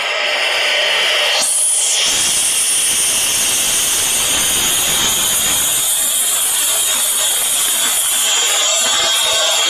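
CNC router spindle running at speed, its bit carving a relief into a wooden board: a steady high whine over a dense hiss, which comes in about a second and a half in after a short rising sweep.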